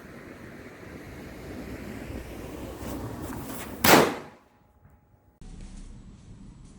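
A single sharp bang of a bijili firecracker bursting, about four seconds in, over a steady background hiss.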